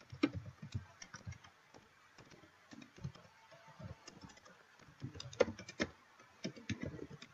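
Typing on a computer keyboard: faint, irregular key clicks in short runs with brief pauses.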